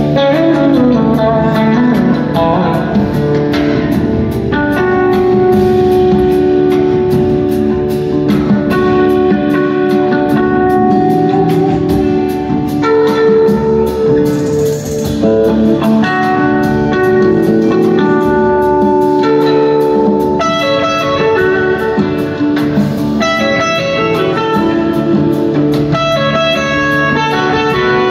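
Live band playing an instrumental passage, an electric guitar leading over drums and keyboards, with gliding notes near the start. It is recorded from among the audience.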